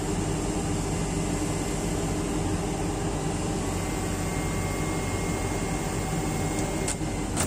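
Crawler excavator's diesel engine running steadily under load while it lifts a generator set on a chain from its bucket. A faint high whine joins about halfway through, and there are two sharp clicks near the end.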